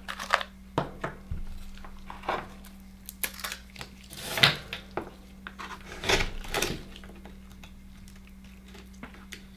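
Akoya oyster shells knocking and clacking on a bamboo cutting board, with scraping as a knife is worked into a shell to pry it open. Scattered sharp knocks, the loudest about four and a half seconds in.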